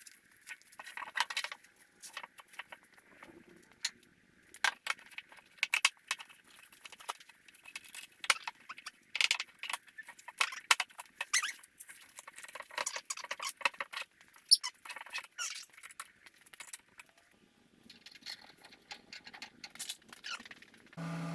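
Irregular rustling, clicks and light clinks from the sunshade canvas and its fittings being handled and unpacked.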